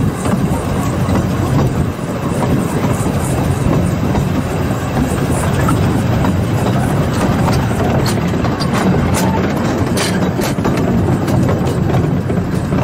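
Narrow-gauge steam train hauled by the Bagnall locomotive Sea Lion, heard from an open carriage: steady running noise of wheels on the rails and the carriage rattling, with a few sharp clicks about eight to ten seconds in.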